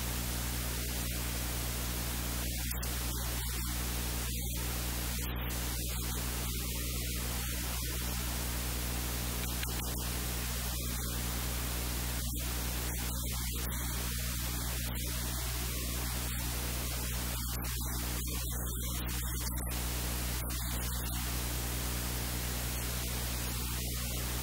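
Steady static hiss with a low electrical hum underneath: recording noise, with no other sound standing out.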